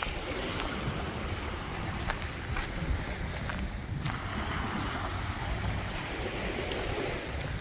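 Small surf washing in and out over the beach, with wind buffeting the microphone as a low rumble, and a few faint clicks.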